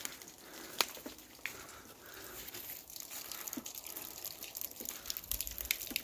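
A small stream trickling steadily, with a few light clicks on top.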